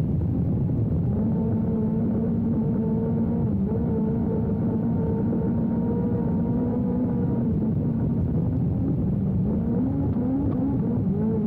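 Speedway sidecar engine running hard at high revs, the pitch dipping briefly and climbing again several times, over a heavy low rumble.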